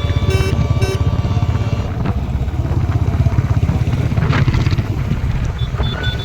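Royal Enfield Bullet's single-cylinder engine running, its exhaust giving a steady, fast low thump.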